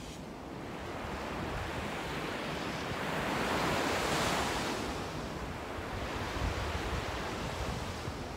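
Ocean surf: waves breaking and washing up the beach, swelling to a peak about four seconds in and then easing off.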